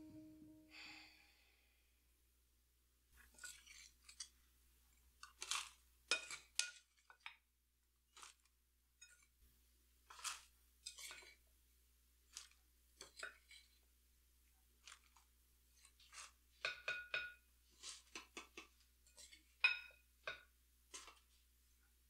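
Hands scooping and crumbling a seed-starting mix of perlite and peat moss in a bowl: faint, irregular gritty crunches and rustles, some in quick clusters, with short pauses between.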